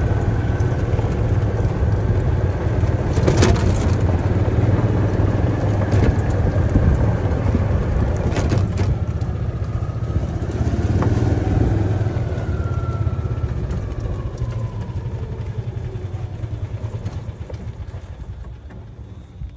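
Golf cart driving along a cart path: a steady low rumble from the cart and its tyres, with a few sharp rattles and knocks. The sound dies away over the last several seconds.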